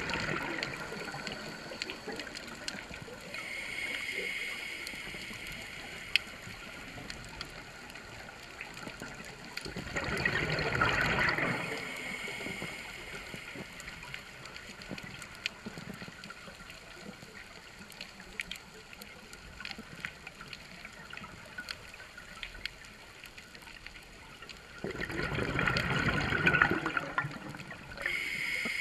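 Scuba diver breathing underwater through a regulator: two long bursts of exhaled bubbles, about 15 seconds apart, over a faint, steady scatter of clicks.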